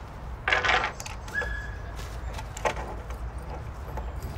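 Handling noise as a bundle of string lights in a plastic bag is lifted out of a plastic storage tote and set on a wooden picnic table: a loud rustle with clinking about half a second in, then a sharp click near three seconds.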